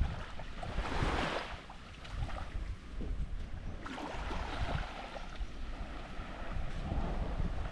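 Small waves washing onto a sandy shore, with wind buffeting the microphone in a constant low rumble. The wash swells about a second in and again around four seconds in.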